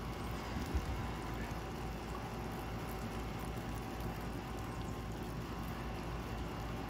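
Steady rushing water over a low, even engine hum, with a single knock just under a second in.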